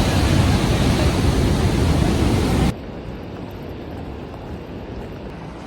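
Steady roar of rushing water from Vernal Fall, loud and heavy at first, then dropping suddenly to a quieter rush about halfway through.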